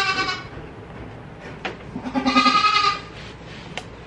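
A goat bleating twice: a short call at the start and a longer call of about a second, two seconds in.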